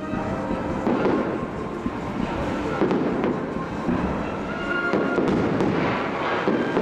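Aerial fireworks shells bursting overhead in repeated booms through a fireworks show, with the show's background music faint underneath.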